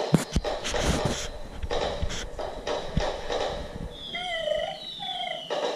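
Electronic fireworks sound effects from a light-up toy Disney castle: sharp pops and crackles in the first second and a half, then high falling whistles about four seconds in.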